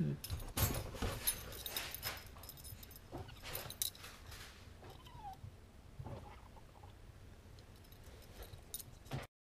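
Wire dog crate rattling and clicking as a border terrier paws at a kitten on top of it in play, with a short faint animal cry about five seconds in. The sound cuts off abruptly near the end.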